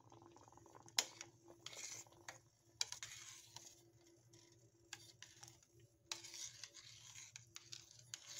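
Metal spoon stirring thickening grits in a stainless steel pot, scraping along the bottom and sides, with a couple of sharp clinks of spoon on metal in the first few seconds. A faint steady hum lies underneath.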